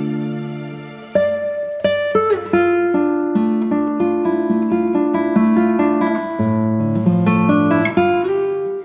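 Background music on acoustic guitar: a held chord fades out, then from about a second in a run of plucked notes and a strummed chord begin.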